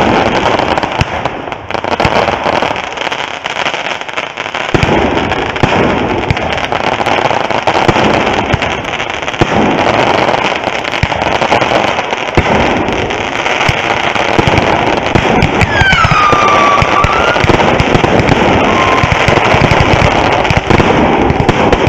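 Fireworks display: a dense, continuous barrage of crackling and popping bursts, lighter for a few seconds near the start. A single whistle falling in pitch cuts through about sixteen seconds in.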